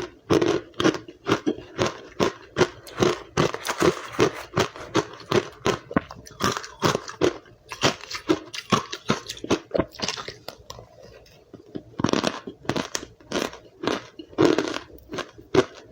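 Close-up crunching and chewing of powdery white ice, rapid crisp bites about three a second, with a short lull about ten seconds in.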